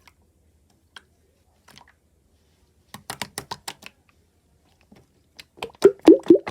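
A quick run of small crisp clicks, then near the end a series of louder, wetter pops, like something soft and sticky being pressed and pulled.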